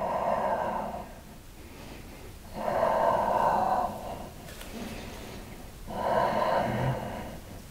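A man breathing deeply and audibly during a seated yoga stretch: three long breaths, each about a second, roughly three seconds apart.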